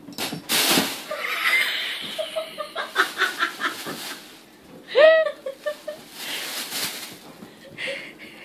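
Thin plastic grocery bags rustling and crinkling as a kitten jumps into the pile and burrows through it. A series of short high-pitched voice sounds comes in between, the loudest a single arching cry about five seconds in.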